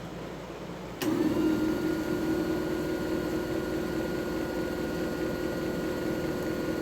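JFJ Easy Pro disc repair machine switching on about a second in and running steadily, spinning the buffing pad over a game disc during the polishing-compound resurfacing stage. It is a steady motor hum with a thin, higher whine above it.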